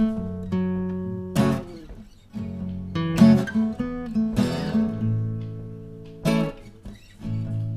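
Background music: strummed acoustic guitar chords, each strum ringing out and fading before the next, about every second or two.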